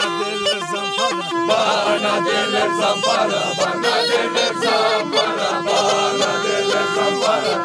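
Tulum, the Turkish bagpipe, playing a dance tune with a held steady note under the melody. About a second and a half in, men's voices join in over the piping.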